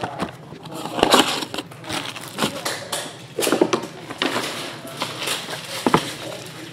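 Shrink-wrapped Bowman Chrome card boxes being handled and set down, the plastic wrap crinkling in irregular bursts with a few sharp knocks of cardboard on the table.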